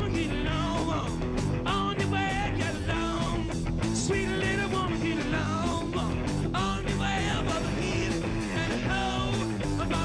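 Live hard rock band playing a loud, fast stretch without lyrics: distorted electric guitars over bass and drums.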